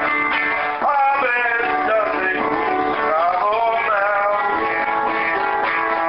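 A song with acoustic guitar accompaniment and a man's singing voice carrying a wavering melody.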